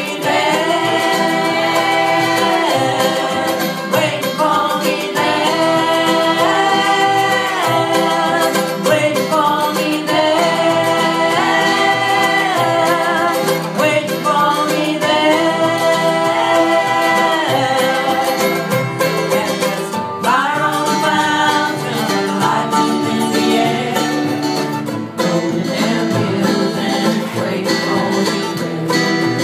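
Live country band playing an instrumental break between sung verses: plucked strings keep the rhythm under a melody of held notes that come in phrases every few seconds.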